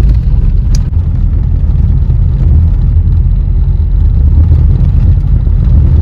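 Steady low rumble of a car driving along a gravel road, heard from inside the cabin, with one sharp click about a second in.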